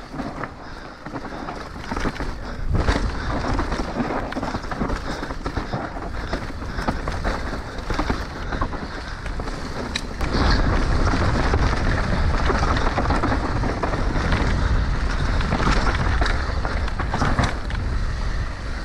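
Orbea Rallon enduro mountain bike descending a rough dirt and rock trail: tyres rolling over loose ground and the bike clattering over bumps, with wind noise on the helmet camera's microphone. The wind rumble grows louder about ten seconds in.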